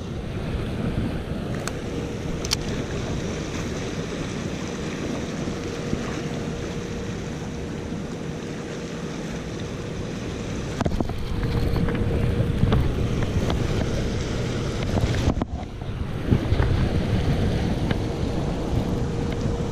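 Wind buffeting the microphone over fast river current rushing and swirling around a boat, louder about halfway through. A faint steady hum comes and goes underneath.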